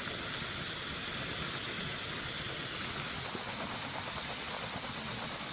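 Potato fries deep-frying in a pan of hot oil, a steady sizzle.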